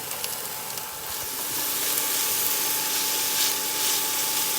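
Onions and sweet peppers sizzling as they fry in oil in a pan, the sizzle growing louder about a second and a half in, with a steady thin tone underneath.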